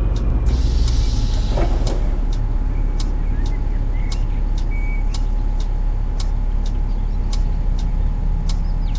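Bus engine droning inside the moving bus, with a faint steady whine and a short, sharp squeak repeating roughly once a second, unevenly: the weird squeaky noise the bus is making. A brief hiss of air comes about half a second in.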